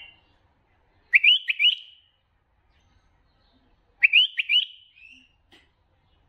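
White-eared bulbul song: two short phrases about three seconds apart, each made of three quick rising notes with a brief trailing note.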